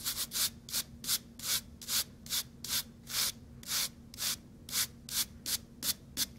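Small brass-bristled wire brush scrubbing the cut copper end of a coaxial cable in quick back-and-forth strokes, about two and a half a second, with a hissing scrape on each stroke. The brushing cleans the exposed conductor faces and removes burrs and debris.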